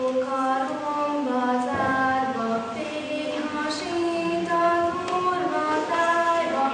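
Female singing: a slow melody of long held notes moving step by step.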